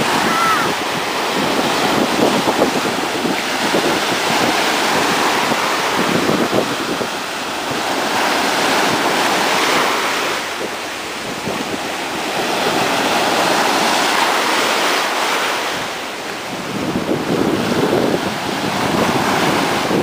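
Ocean surf breaking and washing in the shallows, swelling and easing every few seconds, with wind rumbling on the microphone.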